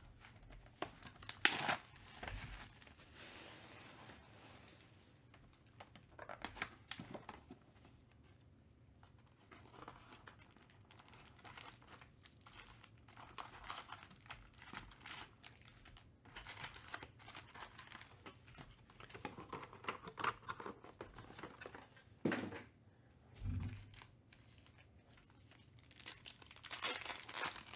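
Cardboard hobby box and plastic-wrapped trading-card packs of 2020-21 Panini Donruss Optic basketball being handled and opened, with on-and-off crinkling and tearing. There is a sharp rip about a second and a half in, a couple of louder bursts a few seconds before the end, and a pack wrapper crinkling near the end.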